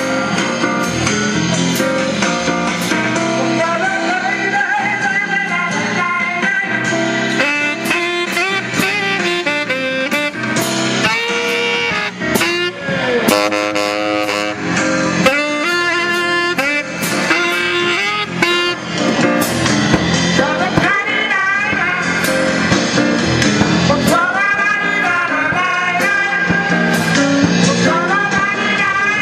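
Live music: a saxophone playing a wavering melody over accompaniment, with drum hits throughout.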